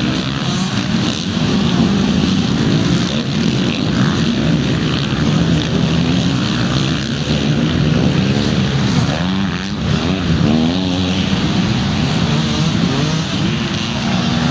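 Several motocross bikes' engines revving out on the track, a loud continuous mix of engine noise. Their pitch keeps rising and falling as the riders open and close the throttle and shift, with one bike's revs sweeping up and down most clearly around ten seconds in.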